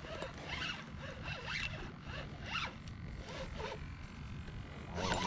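Spinning fishing reel cranked by hand to reel in line, a soft whir that repeats with each turn of the handle.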